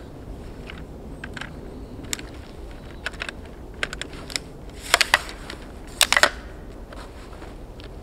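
Tripod leg locks clicking as the legs are collapsed and clamped: a run of sharp clicks, loudest in two quick clusters about five and six seconds in.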